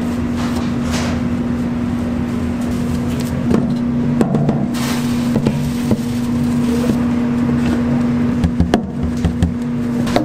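A machine motor running with a steady hum, with scattered clicks and clatters over it from about a third of the way in.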